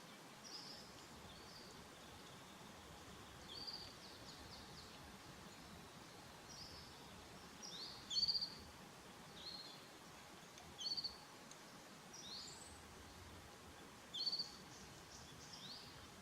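Small birds chirping: short, high calls every second or two, the loudest three spaced about three seconds apart in the second half, over a faint steady hiss of outdoor ambience.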